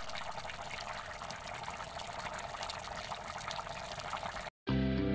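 A pot of taro and snails in coconut milk boiling, with a dense crackle of bubbles popping. Near the end the boiling cuts off and guitar music starts.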